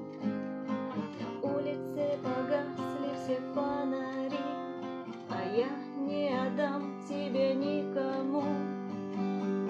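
Music: a strummed acoustic guitar accompaniment, with a wordless sung melody gliding over it in the second half.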